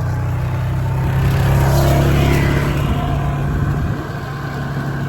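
ATV engine running, getting louder for a couple of seconds and then easing off about four seconds in.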